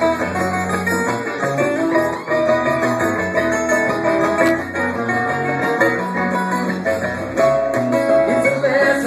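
Live string band playing an instrumental passage: acoustic guitar and picked mandolin over a moving bass line.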